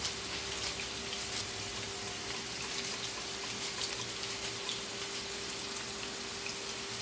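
Chopped vegetables sizzling in oil in a frying pan: a steady hiss with scattered crackles and pops, over a steady low hum.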